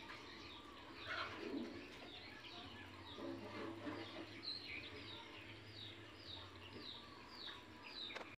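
Birds chirping: short falling chirps, repeating about twice a second through the second half.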